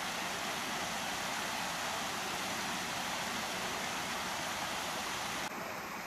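A steady, even hiss of outdoor background noise, with no distinct events, cutting off abruptly near the end.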